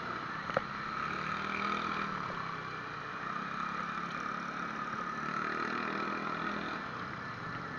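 Steady rushing noise of wind and road while riding a bicycle, picked up by a cheap action camera's built-in microphone, with a low hum underneath for most of it and a single click about half a second in.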